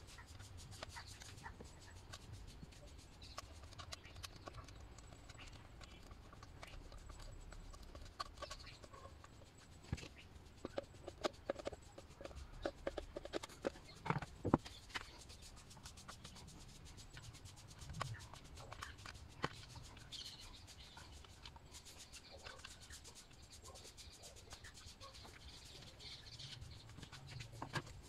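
Faint clicks and taps of a plastic quartz clock movement and its hands being handled and fitted onto a wooden clock face, busiest in the middle.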